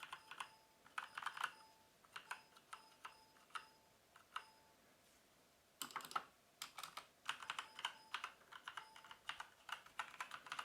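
Typing on a Havit HV-KB389L mechanical keyboard with Kailh Brown tactile switches: quick runs of keystrokes, with a pause of about a second and a half around the middle.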